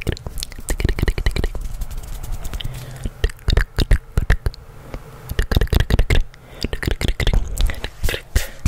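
Close-miked ASMR hand and mouth sounds: irregular soft clicks, pops and rubs right at the microphone, coming faster after a few seconds and settling into an even patter of about four clicks a second near the end.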